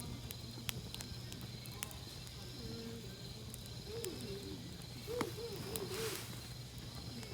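Crickets chirping in a steady pulsing trill, with a campfire's wood crackling in scattered sharp pops and snaps over it. Faint distant voices come in for a few seconds in the middle.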